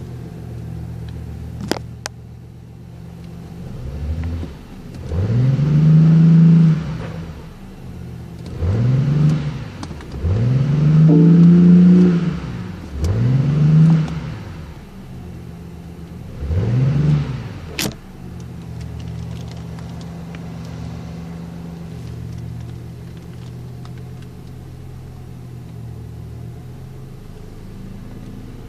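BMW i8's 1.5-litre turbocharged three-cylinder petrol engine idling, then revved five times while standing still, each rev rising and falling back in pitch, the third held longest, before settling back to a steady idle.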